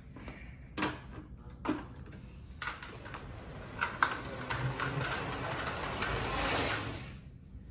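Drift trike rolling and skidding on a smooth floor, its hard plastic rear wheels giving a steady rattling rumble that builds a few seconds in and fades near the end, with a few sharp clicks and knocks along the way.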